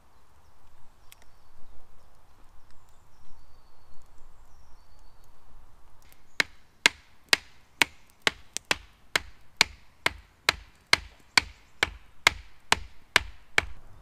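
A wooden stake is hammered into the ground with a run of about sixteen sharp, evenly spaced wooden knocks, about two a second. The knocks start about six seconds in and stop just before the end. The stake is the split stick holding a salmon for ponassing over the campfire.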